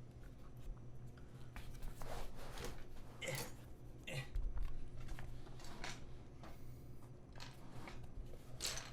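Rustling and scraping as a fabric desk pad is laid back on a desk and things on it are shifted around, with irregular short scrapes and a soft low thump about four and a half seconds in.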